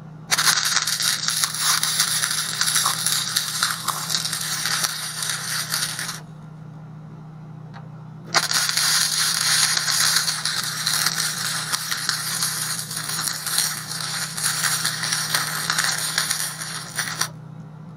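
Wire-feed (MIG) welding arc crackling in two runs, about six seconds and then about nine seconds long, with a two-second stop between them. A steady low hum runs underneath.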